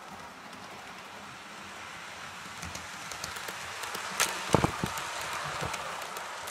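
Model train running along the layout track, a steady rolling hiss that grows louder as it comes past, with a few sharp clicks from the wheels and track about two-thirds of the way through.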